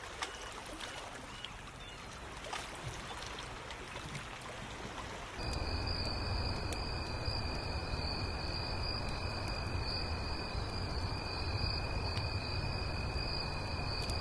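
Water trickling and splashing. About five seconds in it gives way to a steady chorus of crickets with a low rumble underneath.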